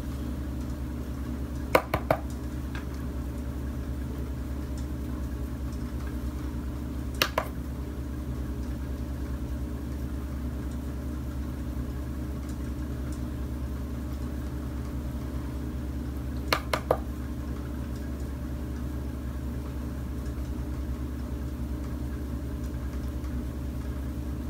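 A steady low mechanical hum, with a few short clicks: a pair about two seconds in, one near seven seconds, and a small cluster near seventeen seconds.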